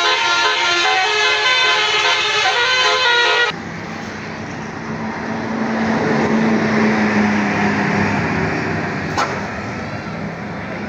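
Bus 'telolet basuri' musical horn playing a tune of quickly changing notes for about three and a half seconds. It cuts off suddenly into road traffic noise, in which a low steady note is held for about three seconds, followed by a single sharp click.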